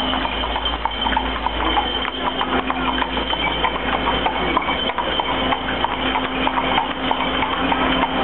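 Several horses walking on a paved street, their shod hooves clip-clopping in an irregular overlapping patter.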